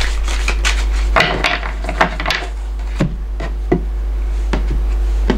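Scattered light knocks and taps of objects being handled on a wooden table, a few of them sharper, over a steady low hum.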